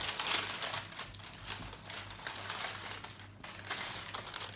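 Baking paper crinkling and rustling as it is gathered up around a load of dried black beans, lifting the blind-baking weights out of a pastry case. Irregular crackling that eases off briefly about three seconds in.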